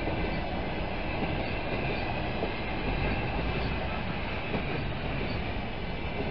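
Passenger coaches rolling past on the rails: a steady, even noise of wheels on track with no break.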